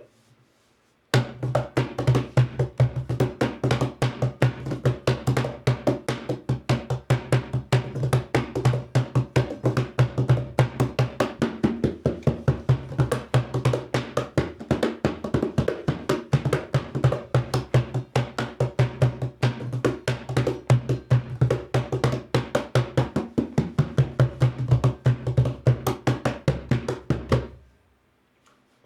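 Hand-built plywood cajon box drum played by hand in a fast, continuous groove, mixing deep bass tones with sharp slaps. The guitar-style strings inside add a snare-like buzz. The playing starts about a second in and stops about a second before the end.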